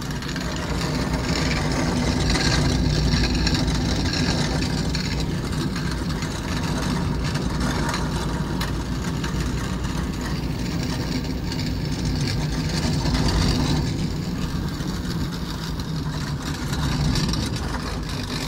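Cable-car cabin running along its steel cables: a continuous mechanical rumble that swells a little and eases off now and then.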